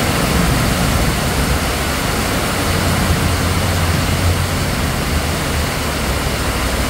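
Heavy rain pouring down steadily onto wet pavement, with a low rumble underneath that swells about halfway through.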